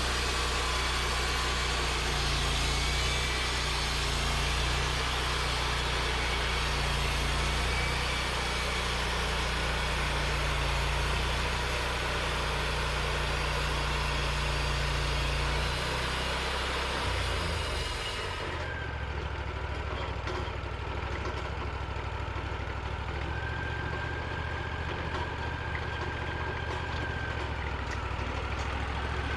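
Sawmill engine running steadily under a broad hiss. About sixteen seconds in, the engine note drops and the hiss cuts off, leaving the engine running lower and quieter.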